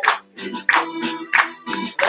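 A group of people singing together while clapping their hands in a steady rhythm, about three claps a second.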